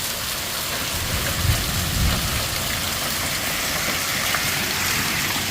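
Heavy rain pouring steadily in a severe storm, with low rumbling swells of wind gusting on the microphone about one and a half and two seconds in.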